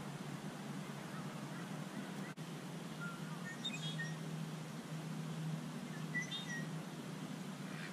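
Waterfowl calling: a few short calls about three and a half seconds in and again around six seconds, over a steady low hum.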